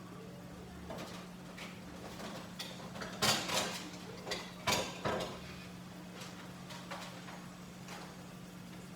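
Rummaging through kitchen cupboards for a serving dish: a cupboard door or drawer sliding and dishes knocking and clattering, loudest about three to five seconds in.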